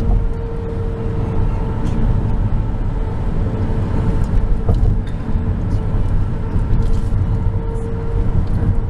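Car driving, heard from inside the cabin: a steady low rumble of engine and road noise, with a faint steady hum.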